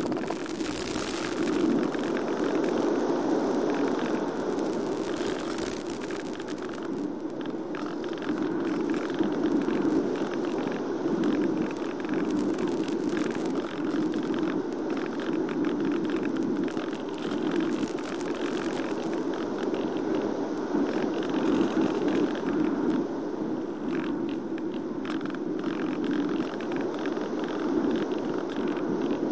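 Steady rushing airflow noise on the onboard microphone of a fixed-wing FPV RC plane gliding with its electric motor cut to zero throttle, with occasional crackles of radio static from the analogue video link.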